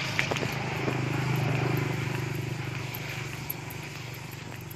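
An engine hum, steady at first and then slowly fading away.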